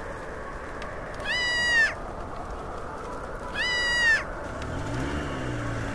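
Baby monkey crying: two drawn-out high-pitched calls a couple of seconds apart, each rising quickly and then holding its pitch.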